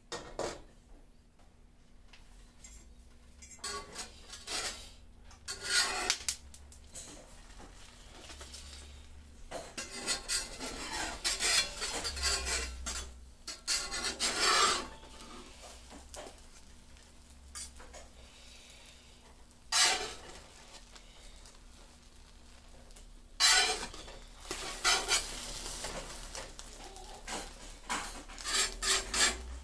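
Metal spatula scraping and clinking against a frying pan in scattered strokes as an omelette is loosened and folded, with a faint sizzle from the pan.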